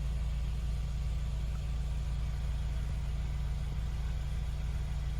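Mercedes-Benz B-Class (W246) engine idling with a steady low hum.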